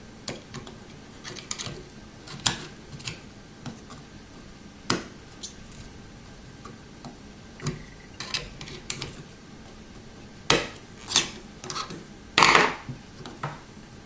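A metal pick scraping and tapping at the solder joints on the back of a circuit board while a soldering iron melts the solder, working through-hole diode leads free. The sound is irregular metallic clicks and short scrapes, with a few louder ones near the end.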